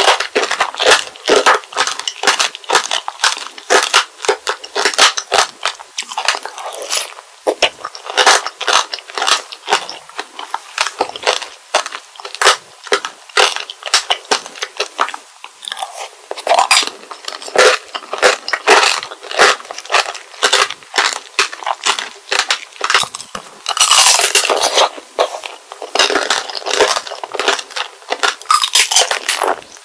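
Close-miked crunching and chewing of strawberry tanghulu: the hard candied sugar shell on large Kingsberry strawberries cracks in quick, crisp crackles between bites. A thicker spell of crunching comes a little after three-quarters of the way through.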